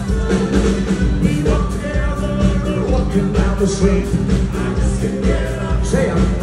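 Live rock band playing an 1980s rock medley: drums keeping a steady beat under bass and guitars, with a voice singing.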